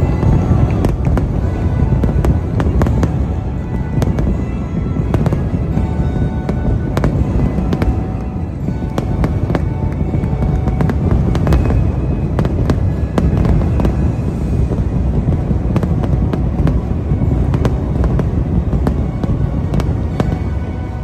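Aerial fireworks going off continuously: a dense run of bangs and crackles over a deep rumble, with music playing underneath.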